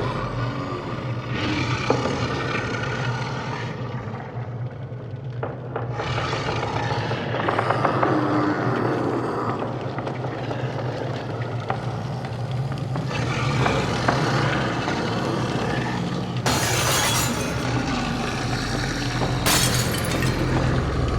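Horror sound-design ambience: a steady low drone under shifting grinding, scraping textures, broken near the end by two sharp crashes a few seconds apart.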